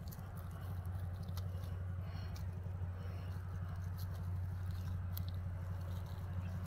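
Dry straw rustling and crackling in short, scattered clicks as a hand pulls mushrooms out of it, over a steady low rumble.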